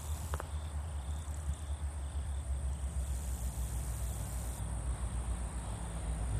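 Trackside outdoor ambience: a steady low rumble with faint insect chirping over it, and one brief click about half a second in.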